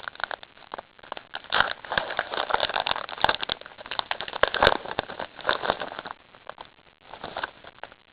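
A baseball card pack wrapper being torn open and handled, giving a busy run of crinkling and crackling with sharp snaps that thins out near the end.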